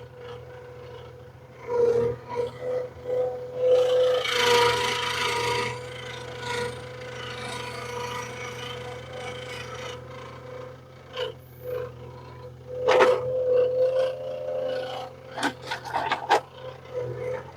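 An engine running with a steady whine, under rough scraping and rubbing of wood, loudest about four to five seconds in, with sharp knocks and clatters near the end.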